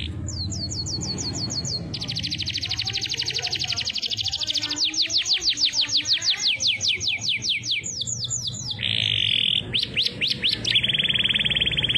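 Domestic canary singing a long run of rapid trills: a series of fast downward-sweeping notes, a dense buzzing roll, more sweeping notes, then a steady high trill.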